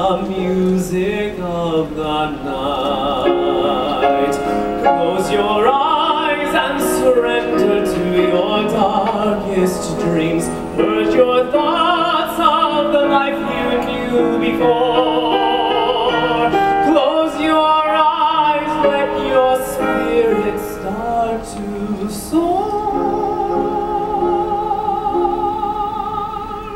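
A singer performing in an operatic Broadway style with strong vibrato, with musical accompaniment, ending on a long held note.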